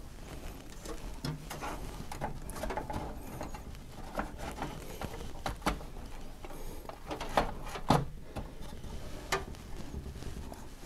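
Hands fitting parts inside a PC case: scattered small clicks, taps and rustling, with a few sharper clicks around six and eight seconds in.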